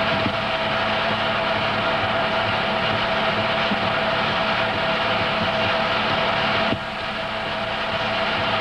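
Film projector running: a steady mechanical whir with a constant hum, dipping slightly in level about seven seconds in.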